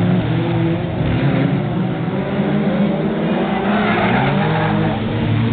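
Several F2 stock car engines racing past at once, their pitch rising and falling as the cars pass and change speed.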